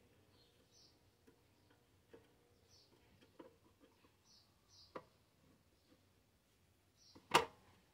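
Faint ticking and scraping of a screwdriver working a screw in the fare box's sheet-metal housing, the screw hole gummed up so the blade won't seat fully. A sharper click comes about five seconds in, and the loudest click just before the end.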